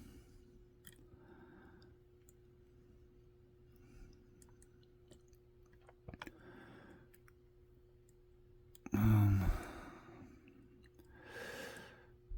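Faint scattered clicks of a pick working the discs inside a 40 mm disc-detainer padlock. A loud sigh comes about nine seconds in, and a breath follows near the end.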